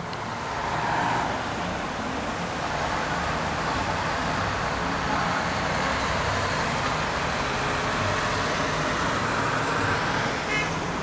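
Steady traffic noise from a busy multi-lane city street, with cars and small trucks passing below.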